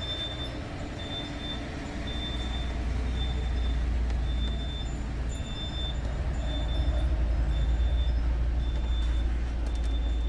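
Low, steady rumble of a heavy truck's diesel engine, swelling louder twice. Over it, a short high-pitched beep repeats a little more than once a second.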